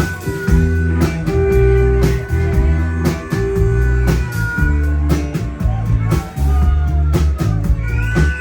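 Live rock band playing: drum kit and bass guitar with acoustic and lead guitars, the lead guitar sliding and bending notes.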